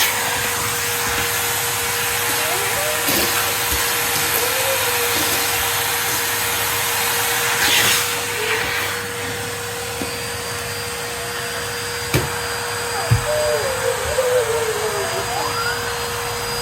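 Henry cylinder vacuum cleaner running steadily: a constant rush of air with a steady hum. Two sharp knocks come about twelve and thirteen seconds in.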